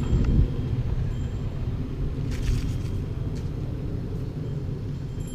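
Steady low rumble of wind buffeting and tyres rolling on asphalt, picked up by a camera riding on a moving mountain bike, with a brief rattle about two and a half seconds in.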